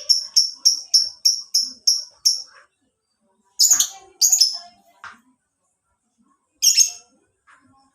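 Lovebird calling: a run of rapid, evenly repeated high chirps, about five a second, that stops a little over two seconds in. Three louder, harsher calls follow with pauses between them, two close together near the middle and one later.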